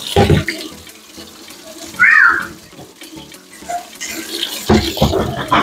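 Tap water running into a sink while dishes and pots are washed, with clattering knocks near the start and again toward the end, and a brief high squeak about two seconds in.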